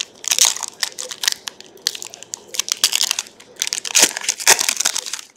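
Trading card pack wrapper torn open and crinkled by hand: a dense run of sharp, irregular crackles, loudest about half a second in and again around four seconds in.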